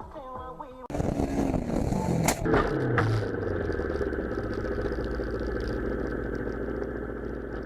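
Music cuts off abruptly and a vehicle's engine comes in, its note falling. Two sharp bangs follow, a little over a second and about two seconds later. Then the engine runs with a steady low hum.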